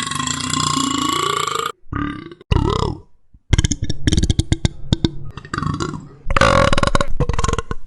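A young woman burping loudly, several burps in a row. The first long burp ends under two seconds in and is followed by two short ones. After a brief pause comes a long crackly, rattling burp, and another long, steady-pitched burp comes near the end.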